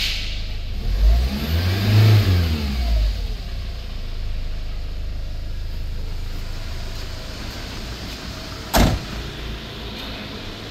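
2011 Hyundai iLoad's 2.5-litre four-cylinder turbodiesel is blipped once about a second in, its pitch rising and falling back, then idles steadily. A single loud thump near the end, the van's door slamming shut.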